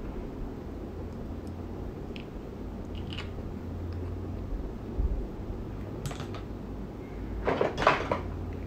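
Steady low room hum with a few faint clicks, then a brief louder rustle of handling near the end.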